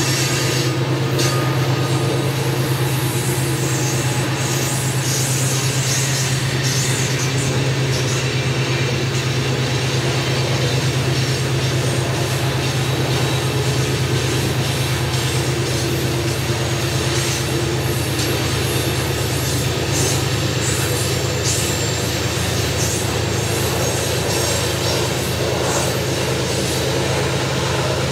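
Loaded coal hopper cars rolling past on a curve: a steady rumble of steel wheels on rail, with a high flange squeal now and then in the first few seconds. Under it runs a steady low drone from the diesel mid-train helper locomotives working toward the camera.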